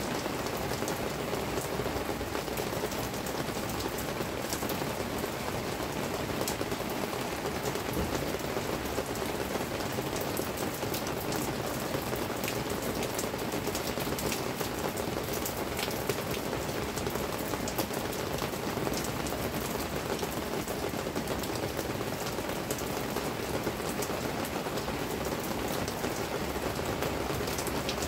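Steady rain falling, with many separate drops tapping close by throughout.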